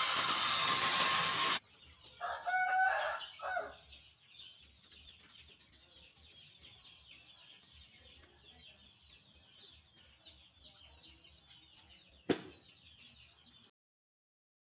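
An angle grinder with a sanding disc runs with a steady whine and stops abruptly after about a second and a half. A rooster then crows in the background, followed by faint low ticking and one sharp click near the end.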